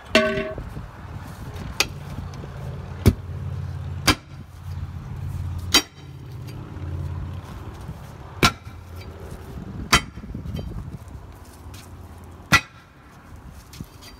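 A loud metallic clang with ringing at the start, then seven sharp, irregularly spaced hammer blows on a forklift tire's multi-piece steel wheel as the bead is broken loose. A vehicle engine drones steadily underneath.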